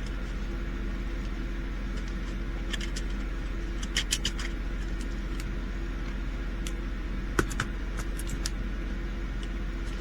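Small plastic bags of diamond painting drills being handled, giving scattered light clicks and crinkles, the sharpest about seven seconds in, over a steady low background hum.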